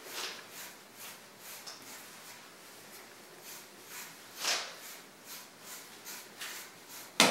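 Rubber curry brush rasping over a weimaraner's short coat in quick repeated strokes, about two a second, working loose shed hair, with one sharp click near the end.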